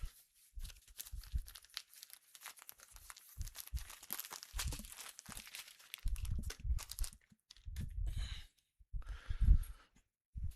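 A shipping package being torn open by hand, its wrapping crinkling and crackling as it is pulled apart, with heavier rustling and handling noise in the second half.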